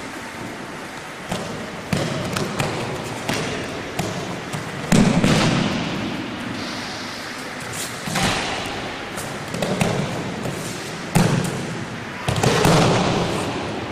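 Bodies thudding onto mats as an aikido partner is thrown and takes breakfalls: about seven thumps and slaps a second or two apart, the loudest about five seconds in, each ringing briefly in a large hall.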